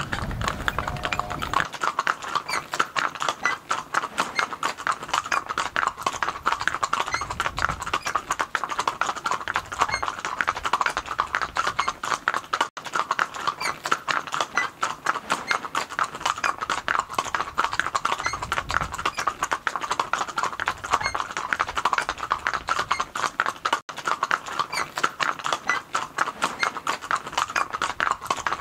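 Hooves of a four-in-hand pony team clip-clopping on brick paving, a dense, steady run of strikes.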